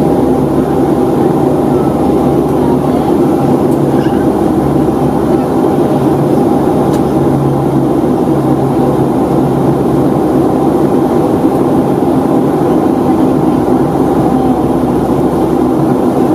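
Steady cabin noise inside a Boeing 757-200 in flight: rushing airflow over the fuselage mixed with the drone of its Rolls-Royce RB211 engines, with a low steady hum underneath.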